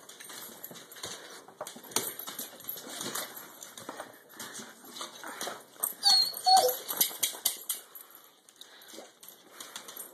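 Basset hound's claws clicking and tapping on a tile floor as it moves about, with a short whine about six seconds in.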